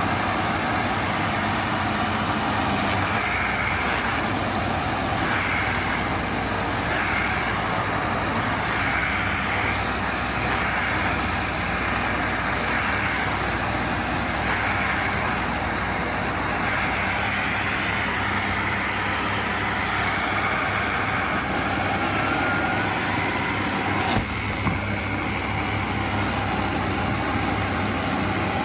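Vacuum cleaner motor running steadily with a loud, even rush of air. A short click comes near the end.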